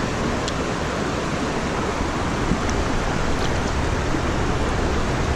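Steady rush of a shallow, rocky stream flowing, with a few faint small splashes as a hand moves in the water.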